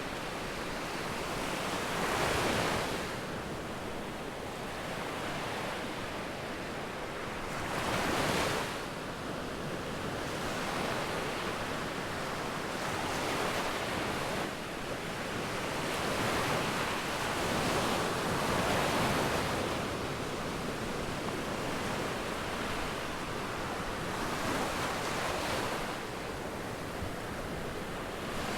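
Sea waves breaking on the shore: a continuous rush of surf that swells louder every few seconds, with the strongest surges about two and eight seconds in.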